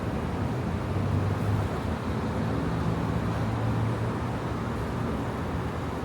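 Steady city street traffic noise with a low engine rumble.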